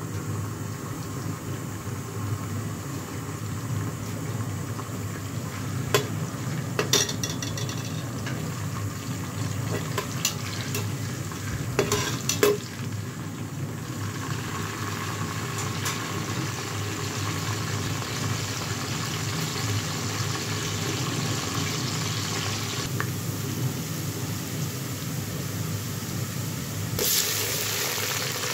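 Sliced onions sizzling in oil in an aluminium pressure cooker, stirred with a perforated spoon that knocks against the pot several times. Near the end the sizzle gets louder as tomato wedges go in.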